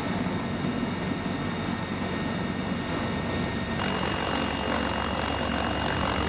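CH-53E Super Stallion heavy-lift helicopters running, a steady rotor and turboshaft-engine noise with a high, steady turbine whine. About four seconds in the whine jumps higher in pitch and the noise grows louder.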